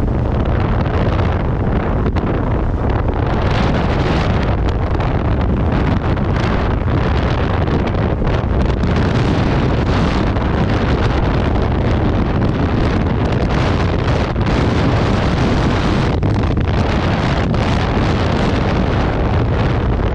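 Steady wind noise buffeting a helmet-mounted microphone on a moving motorcycle, with the bike's engine running underneath.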